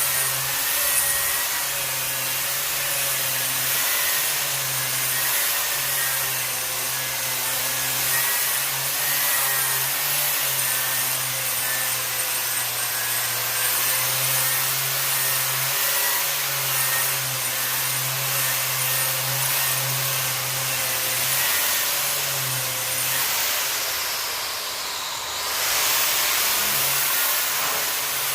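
13.5-amp variable-speed angle grinder with a flap disc grinding rust scale and mill scale off a steel welding table top: a steady whine over a rough grinding hiss. About 24 seconds in the sound eases briefly, then comes back to full.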